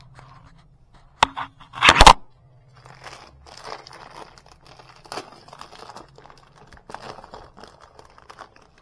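Plastic bag crinkling and rustling as it is handled, with a short loud rustle about a second in and a louder one about two seconds in, then lighter scattered crackling.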